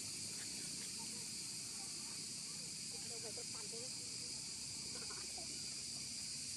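Steady high-pitched insect chorus, crickets or cicadas, buzzing without a break. A few faint, brief squeaky calls come about three seconds in.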